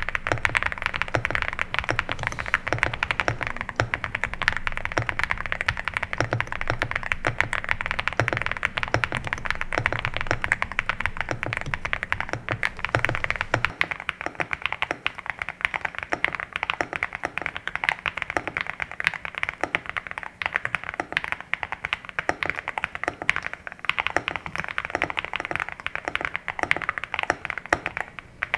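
Continuous fast typing on an EVO80 custom mechanical keyboard fitted with Keygeek Oat switches on a polypropylene (PP) plate. It makes a dense, even patter of keystrokes, which the Oat switches give a softer, lower sound.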